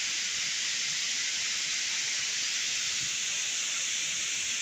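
Steady rushing of nearby water, an even hiss with no breaks.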